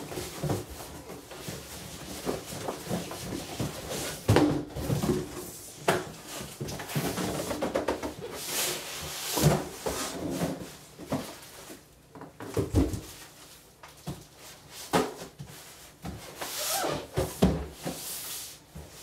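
Cardboard boxes being handled: a retail box sliding out of an outer cardboard shipping box, with an irregular string of scrapes, rustles and knocks as the boxes are pulled apart and set on a wooden workbench.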